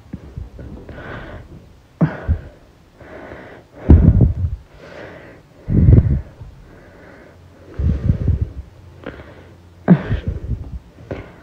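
A person breathing hard, a string of about nine loud huffing breaths in and out, the strongest about 4, 6, 8 and 10 seconds in, passed through a voice-changer app.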